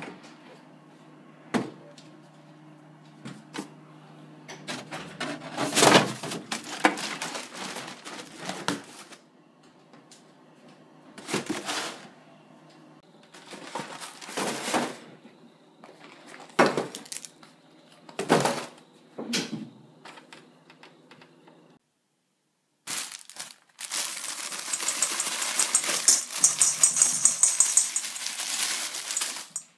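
Kitchen handling sounds: a string of knocks and clatters as items are picked up and set down on a countertop. Near the end comes a longer, steady rushing noise as dry mix is poured into a metal bowl.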